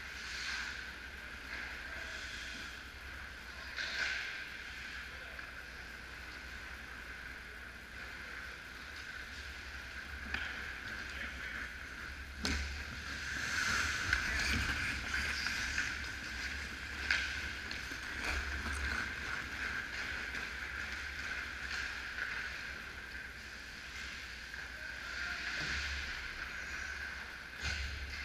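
Ice hockey play: skates scraping on the ice and sticks and the puck clacking, loudest when play reaches the net about halfway through, over a steady background hiss.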